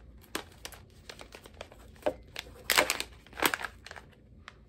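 Plastic pouch of tea being handled and opened, crinkling in a string of short crackles, loudest twice a little past halfway.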